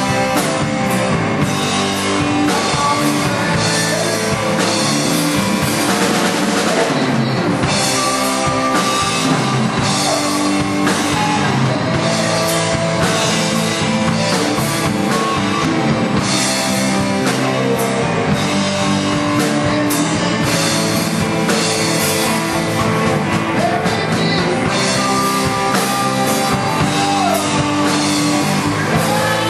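Live rock band playing: electric guitars, bass and a drum kit at a steady beat, with some guitar notes bent in pitch.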